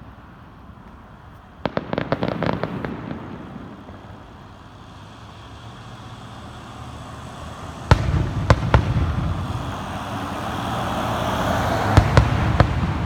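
Fireworks display: a rapid string of crackling reports about two seconds in, then deep booms of shells bursting about eight seconds in and again near the end, with a hiss building up between them.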